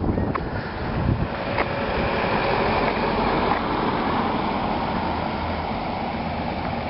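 Road traffic noise outdoors: a steady hiss of passing vehicles that swells slightly a few seconds in and then eases.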